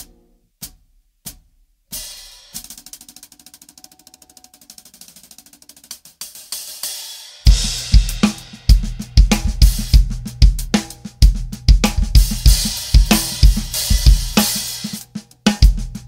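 Drum kit with Meinl hi-hats: three sharp clicks, then the hi-hat played alone in quick, even strokes, then from about seven seconds in a full, loud groove with bass drum and snare under the hi-hat.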